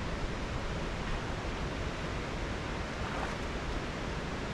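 Steady rush of falling water from a waterfall pouring into a rock waterhole, an even hiss with no breaks.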